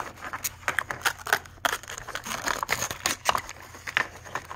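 Thin printed plastic wrapper crinkling and rustling in the hands as a small toy is unwrapped, with irregular sharp crackles.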